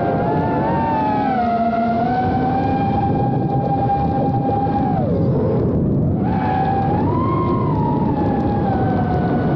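FPV quadcopter's electric motors and propellers whining steadily, the pitch wavering with throttle; the whine drops sharply about five seconds in, as the throttle is cut, then climbs back up a second later.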